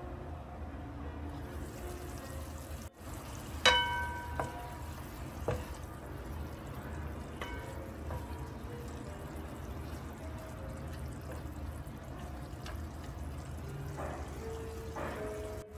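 Salted fish and green chilies simmering wetly in a pan while a wooden spatula stirs them. A single ringing metallic clank about four seconds in, followed by a few lighter knocks.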